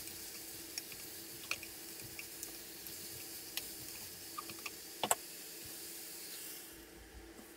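Diced onion, daikon, carrot and bacon sizzling in an aluminium saucepan while being sautéed until the onions turn translucent, with scattered clicks and scrapes as a spatula stirs against the pan. The sizzle drops away near the end.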